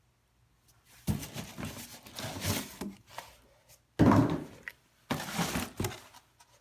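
Cardboard box and packaging being handled: irregular rustling and scraping, with a sharp thunk about four seconds in.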